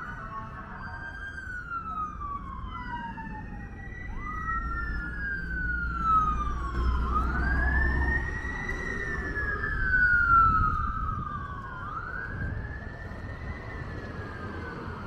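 Two emergency-vehicle sirens wailing out of step, each rising quickly and falling slowly in cycles of about three to four seconds, loudest about ten seconds in, over a low traffic rumble.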